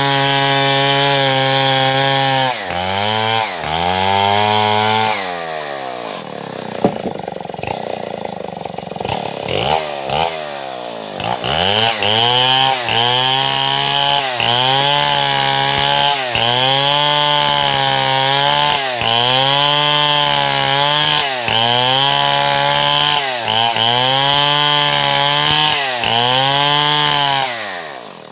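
Stihl MS070 two-stroke chainsaw cutting wood at high revs. The engine pitch sags under load and recovers in a steady rhythm about once every second or so. It runs lower and quieter for several seconds in the middle, and drops off throttle at the very end.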